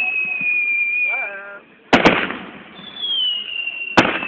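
Fireworks going off: a high whistle slowly falling in pitch, two sharp bangs in quick succession about two seconds in, then another falling whistle and a single bang near the end.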